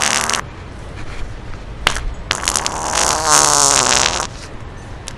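Wet, sputtering fart noises: one blast ends just after the start, there is a sharp click about two seconds in, and then a longer, pitched, sputtering fart lasts about two seconds.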